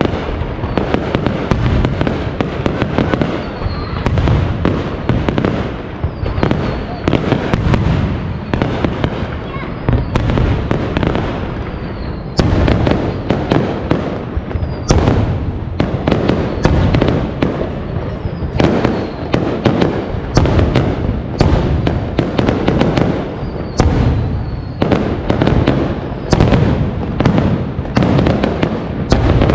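Aerial firework shells bursting in a continuous barrage: dense, overlapping sharp bangs, several a second, over a steady low rumble.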